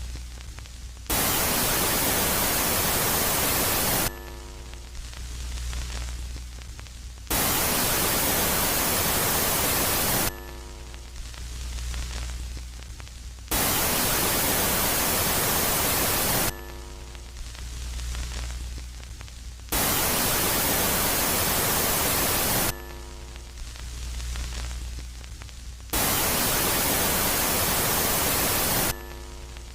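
Synthesized space-sound ambience, presented as the sound of Jupiter's moon Megaclite. It alternates in a steady cycle: loud static hiss for about three seconds, then a quieter phase of low hum with a faint stack of tones, five loud phases in all.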